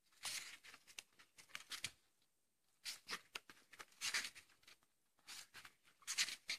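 Paper pages of a paperback book being flipped quickly by hand, in three runs of rapid rustling flicks with short pauses between.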